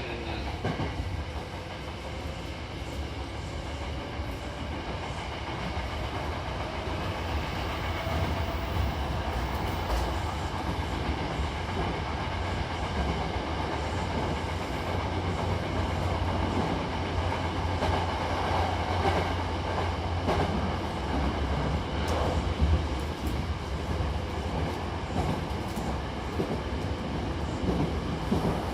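Hankyu Imazu Line commuter train running between stations, heard from inside the car: a steady rumble with wheels clicking over rail joints, growing slightly louder over the first several seconds.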